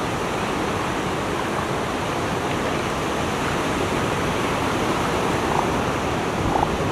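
Steady rushing surf washing onto the beach, an even noise without a break.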